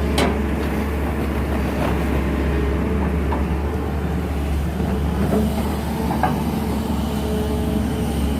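Excavator diesel engine running steadily, with a few light knocks, the sharpest just after the start.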